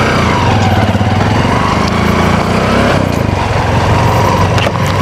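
A small vehicle engine running steadily close by, with a low, even hum.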